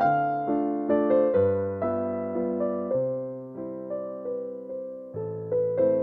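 Slow, gentle piano background music: soft chords and a simple melody, each note struck and fading, with a new chord about every one to one and a half seconds.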